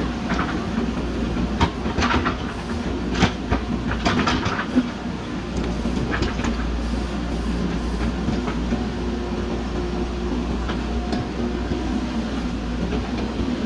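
JCB backhoe loader's diesel engine running steadily under digging load, with several sharp knocks in the first few seconds.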